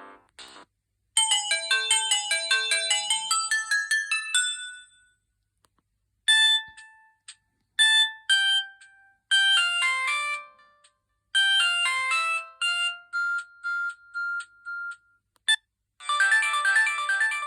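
Preloaded ringtones of a Samsung GT-E1080i mobile phone, played one after another. A short electronic melody, a pause, then a longer tune that ends on a run of repeated notes, and a new ringtone starts near the end.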